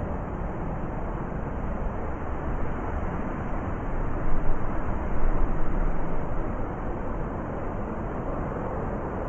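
Blizzard wind blowing with a deep, steady rush, gusting louder about four to six seconds in.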